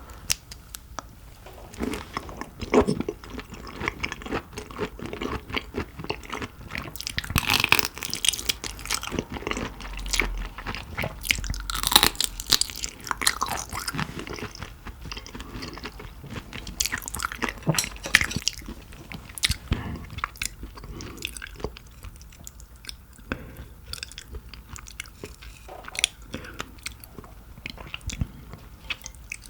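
Close-miked mouth sounds of someone eating shrimp: irregular chewing and biting with crunchy crackles, busiest in the middle.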